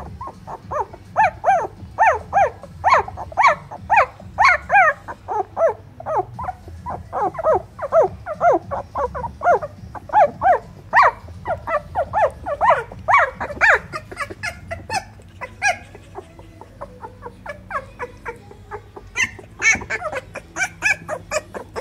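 Twelve-day-old Keeshond puppies squealing and whimpering: a fast run of short high squeaks, several a second, that thins out for a few seconds past the middle and picks up again near the end.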